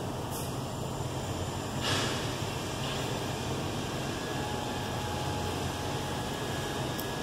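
Steady low background hum, with one short scrape or rustle about two seconds in and a faint click near the end.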